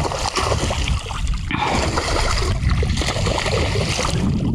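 Water splashing and sloshing at the surface as a hooked bonefish thrashes close to the canoe, with wind rumbling on the microphone.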